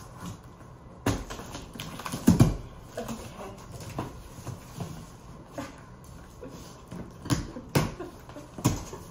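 Butter knife scraping and slitting the packing tape on a cardboard box, with irregular scratchy rustling of the cardboard and several sharp knocks as the box is handled, the loudest about two seconds in.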